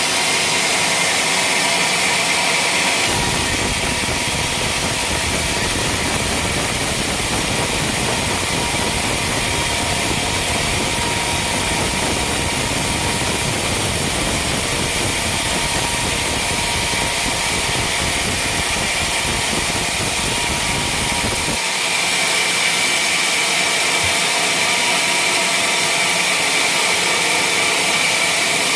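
Sawmill machine running with a loud, steady noise that turns lower and fuller a few seconds in and thins out again about three-quarters of the way through.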